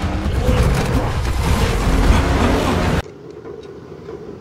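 Animated-film soundtrack of race cars speeding over dirt: engines and tyre noise, loud and dense. It cuts off suddenly about three seconds in to a quiet outdoor background with a few faint clicks.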